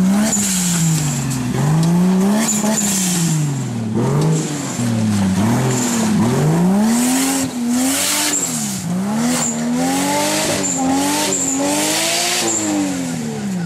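Off-road 4x4's engine revved hard over and over, its pitch climbing and dropping every second or two as the vehicle fights through mud, with bursts of rushing noise from the tyres churning mud and brush.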